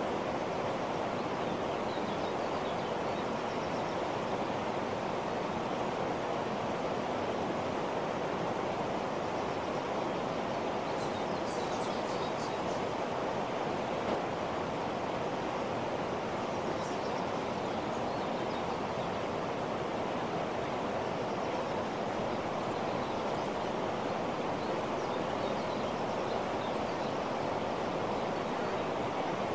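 Steady, even rushing noise that holds the same level throughout, with a brief faint cluster of high ticks about halfway through.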